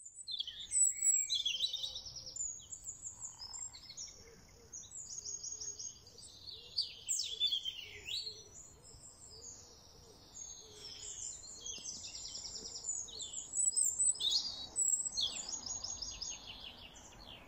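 Songbirds singing, several songs overlapping in quick trills and chirps.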